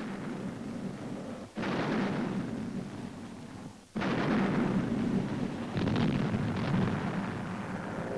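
Military rockets launching. Each launch starts suddenly and goes on as a loud rushing noise of rocket exhaust. New launches break in abruptly about one and a half seconds and four seconds in.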